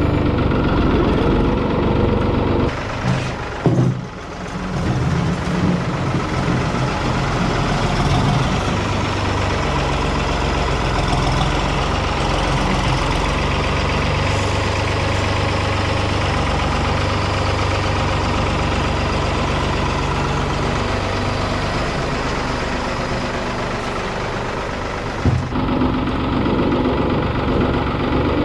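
Tractor engine running steadily, with a brief dip in loudness about four seconds in.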